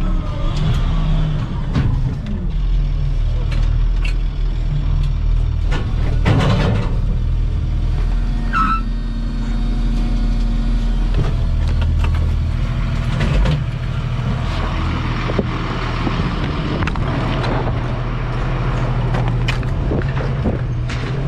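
Vehicle engine running while driving, heard from inside the cabin: a steady low drone with frequent knocks and rattles from the body.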